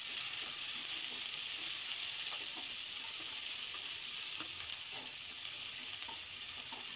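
Sliced onion and garlic sizzling steadily in hot oil on high flame in an aluminium pressure cooker. A wooden spatula stirring them scrapes lightly against the pan now and then.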